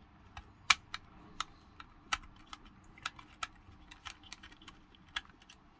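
Small precision screwdriver prying at the plastic housing of a eufyCam 3 security camera. It makes irregular, sharp plastic clicks and ticks as the front section is levered away from the back.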